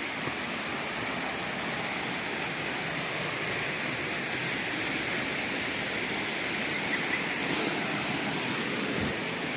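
Steady rushing of a tall waterfall's falling water, an even noise with no breaks.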